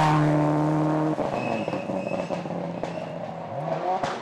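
Subaru Impreza rally car's engine held at high revs as it speeds past. About a second in the steady note drops away, and fainter rising revs follow near the end as it accelerates off up the gears.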